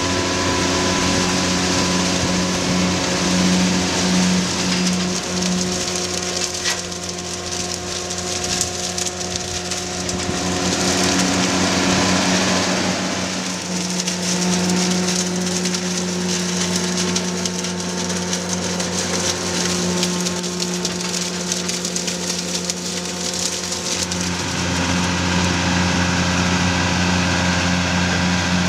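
New Holland Braud over-the-row harvester working a citrus hedgerow. Its engine gives a steady drone under a dense rattling patter of shaken branches and fruit. The engine note deepens near the end.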